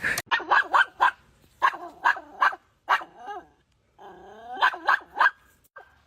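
A dog barking in quick, separate barks, with a longer wavering growly call about four seconds in, followed by three more barks.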